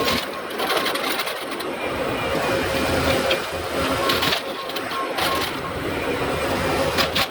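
Heavy demolition machine running steadily under load, with its engine and hydraulics working, and crunching knocks of debris being broken up, the sharpest about four seconds in and again near the end.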